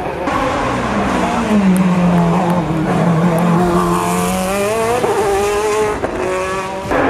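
Sports-prototype race car's engine running at high revs on a hillclimb, its pitch rising under acceleration, dropping sharply at an upshift about five seconds in, then rising again.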